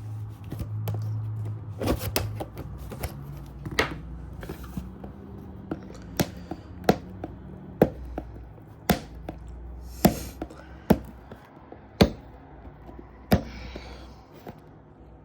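A smoke alarm package being opened and handled: a string of about a dozen sharp, irregular clicks and knocks, loudest in the middle stretch.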